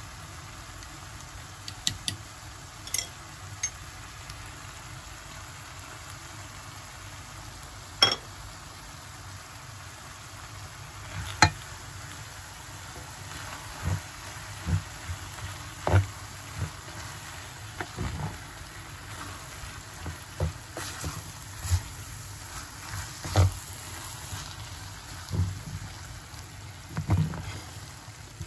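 Food frying in oil in a pan, a steady sizzle, with scattered knocks and clicks of a utensil against the cookware, coming more often in the second half.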